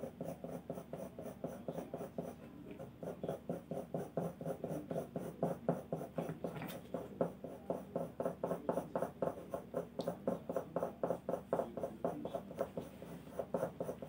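A soft 6B graphite pencil shading on drawing paper in quick, even back-and-forth strokes, about four a second, getting somewhat louder a few seconds in.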